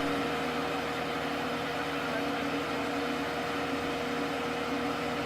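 Engine of a boat lift running steadily while hauling out a sailboat: an even mechanical hum with a constant tone.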